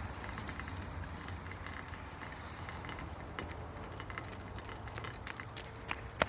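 Steady low outdoor rumble, with a few sharp footsteps on pavement near the end as someone walks up close.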